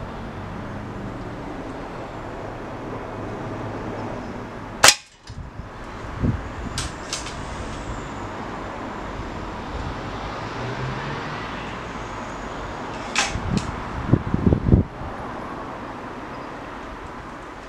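A single air rifle shot, a sharp crack about five seconds in, followed by a few lighter clicks and clunks of handling between shots.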